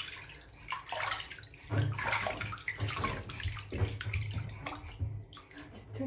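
Bathwater splashing and sloshing in a tub as a baby is bathed, in irregular bursts.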